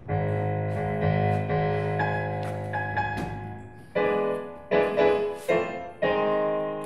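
Solo piano playing the introduction to a slow hymn: a full chord struck and held for several seconds, then a run of new chords struck in quicker succession from about four seconds in.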